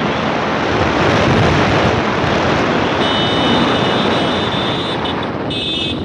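Wind rushing over the microphone of a moving motorcycle, with the bike's engine and tyre noise underneath. A high, steady ringing tone joins about halfway through, stops, and briefly comes back near the end.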